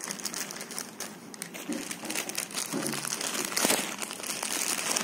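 Plastic delivery bag crinkling and rustling as it is handled and turned over in the hands, with irregular crackles and a louder crinkle a little past halfway.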